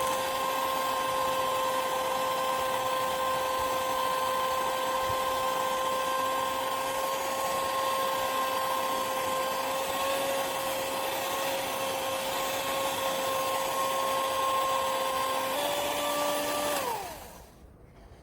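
A small electric motor running steadily with a high whine. Its pitch steps up slightly near the end, then it winds down and stops.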